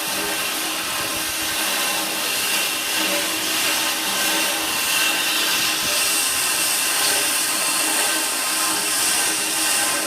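Hoisting machinery's motor running steadily, a continuous hum with a hiss above it.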